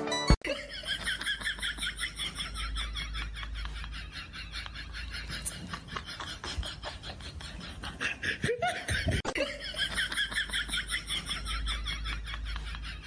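A person laughing hard, a long run of quick repeated laughs with a short break about eight and a half seconds in.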